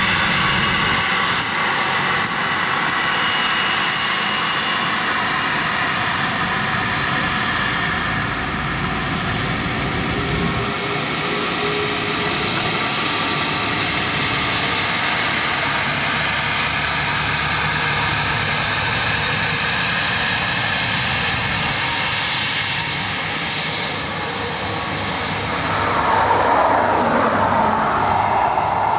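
Airbus A330-300's twin Rolls-Royce Trent 700 jet engines running as the airliner rolls along the runway, a steady jet whine and rumble. Near the end, as it swings away with its exhausts toward the listener, the engine noise grows louder, with a sweeping, shifting tone.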